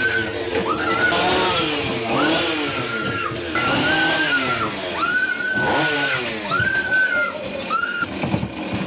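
Chainsaw engine revved over and over, each rev climbing quickly to full throttle, holding briefly and dropping back, roughly every second and a half.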